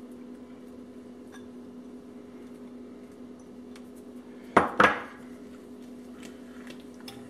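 Two sharp clinks of a glass bowl against a hard surface about four and a half seconds in, over a steady low hum.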